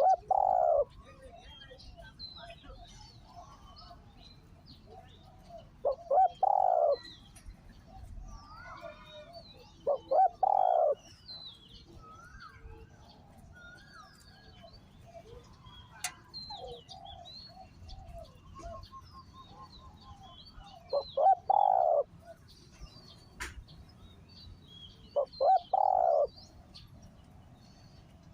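Spotted dove cooing: five short coo phrases a few seconds apart, each a quick run of notes, with a long pause in the middle. Small birds chirp faintly behind.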